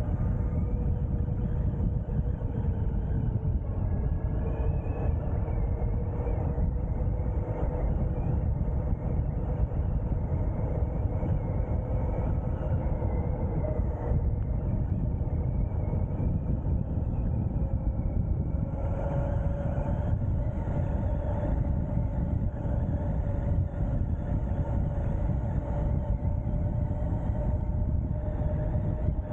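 Wind rushing over the microphone while riding the Ariel Rider X-Class 52V electric bike at speed, with the electric motor's whine above it, drifting in pitch with speed and rising a little and getting stronger about two-thirds of the way through.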